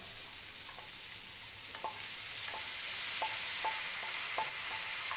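Cut long beans (achinga payar) sizzling as they are tipped into hot coconut oil in a frying pan: a steady hiss with faint clicks about twice a second.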